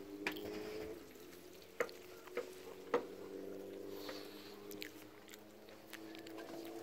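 A faint steady hum of several low tones, with a few sharp knocks and clicks about two to three seconds in.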